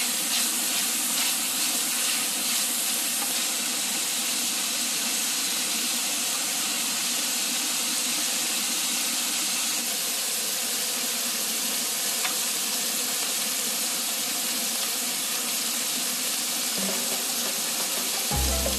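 Cubes of meat sizzling steadily in hot oil in a nonstick frying pan, with a wooden spatula stirring them. Music comes in near the end.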